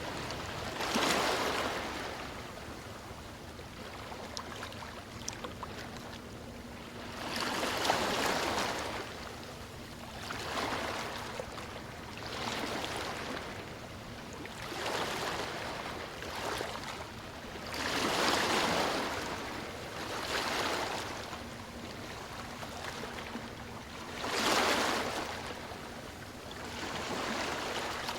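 Sea waves washing onto a beach, the surf swelling and falling back every few seconds. A faint steady low hum sits under it at times.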